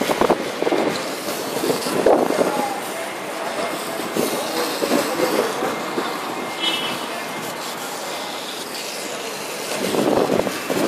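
Hose spraying water over a fire-damaged Toyota forklift to douse it: a steady hiss of spray and splashing, louder in short spells near the start and again near the end.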